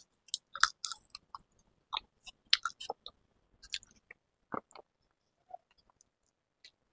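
A person eating a mouthful of rice and dal: chewing, with scattered small crunches and mouth clicks.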